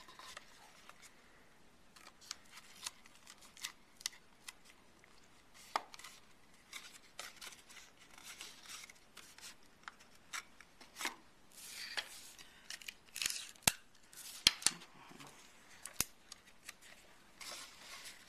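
Stiff cardstock rustling and crackling as hands fold, press and fit pieces together, with scattered sharp little clicks and taps, busier in the second half.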